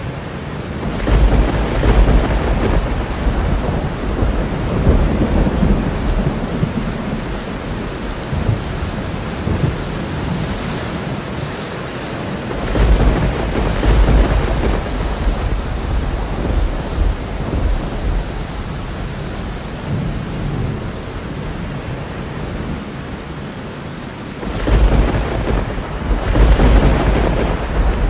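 Thunderstorm: steady rain with three long rolls of thunder rumbling in, about a second in, near the middle, and near the end.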